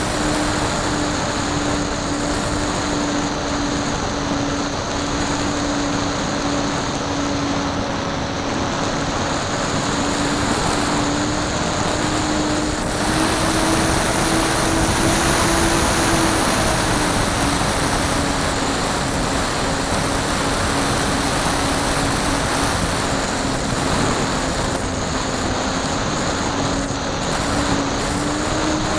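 Model airplane's motor and propeller droning steadily in flight, heard from on board with wind rushing over the microphone. The pitch lifts a little midway, eases off, and climbs again near the end.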